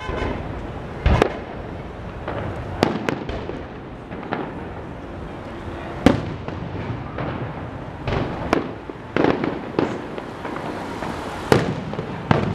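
Aerial firework shells bursting in the sky: an irregular string of about ten sharp bangs, each trailing off with a short echo, the loudest about six seconds in.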